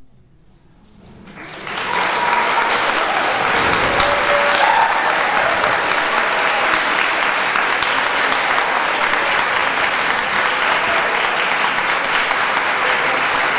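Audience applause in a concert hall, swelling over the first two seconds, then steady and sustained.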